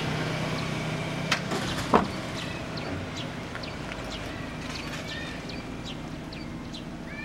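A car's engine running steadily and then fading as it pulls away. Two sharp knocks come about one and two seconds in, the second the loudest. Short bird chirps sound throughout.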